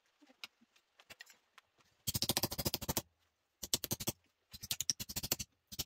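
Hammer tapping steel rose petals on a wooden stump block, dishing them into bowl shapes: faint handling clicks at first, then about two seconds in three or four bursts of very rapid, closely spaced metal strikes.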